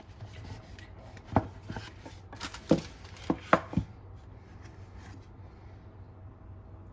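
Packaging being handled during an unboxing: about six sharp knocks and taps over the first half, as the box and case are moved and opened. After that only a faint steady hum remains.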